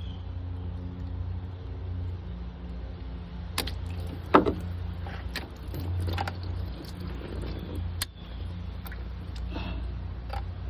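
Scattered clicks and knocks of hands and tools working loose parts in a Chevy Cruze engine bay, the loudest about four and a half seconds in, over a steady low hum.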